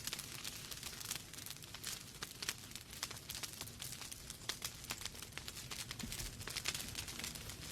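Wood fire crackling: logs burning with many sharp, irregular pops and snaps over a soft low rumble of the flames.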